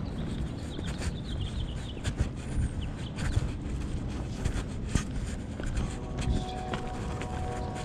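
Person walking a dog on a leash: footsteps and scuffs on pavement with irregular clicks and taps, over a low rumble of camera handling noise. A bird chirps faintly about a second in, and a faint steady hum comes in near the end.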